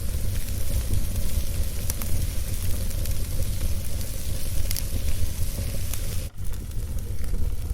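Wood fire crackling in a fireplace: a steady low rumble of flame with scattered small pops and snaps. About six seconds in, the sound drops out for an instant.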